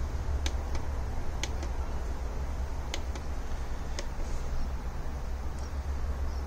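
Several sharp plastic clicks from the buttons of a drone's handheld remote controller being pressed, mostly in the first four seconds, over a steady low hum.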